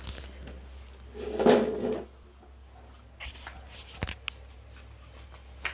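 Handling noise from a plastic bag of kitchenware being moved about on a tiled floor: a louder muffled sound lasting almost a second about a second and a half in, then a few sharp knocks.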